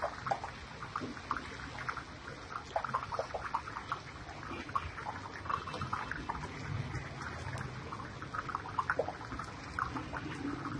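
Hot oil crackling and bubbling around besan boondi (small pakoriyan) deep-frying in a large karahi, with many small irregular pops.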